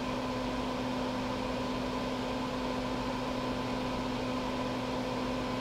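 Steady background hum: an even noise with a constant low tone and fainter higher overtones, with no distinct events.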